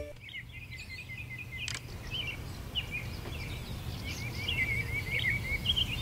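Outdoor ambience: small birds chirping repeatedly over a steady low rumble.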